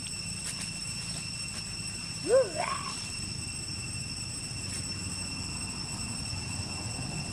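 A baby macaque gives one short coo that rises and falls, about two seconds in. Under it runs a steady high-pitched drone.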